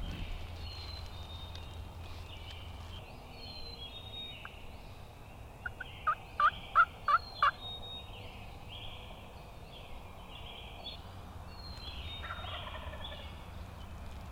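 Wild turkeys calling: fainter calls keep up throughout, and a sharp run of about six loud, quick notes comes a little past the middle.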